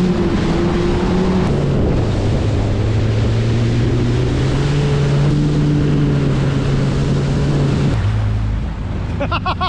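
Yamaha FX Cruiser HO WaveRunner running at high speed: a steady engine and jet-pump drone with wind buffeting the microphone and spray hissing. The engine note drops about a second and a half in, climbs back a few seconds later, and eases off near the end.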